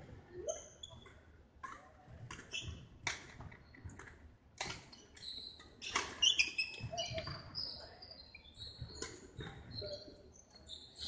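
Badminton rally: a string of sharp racket hits on the shuttlecock and footfalls, with sneakers squeaking in short high chirps on the wooden court floor.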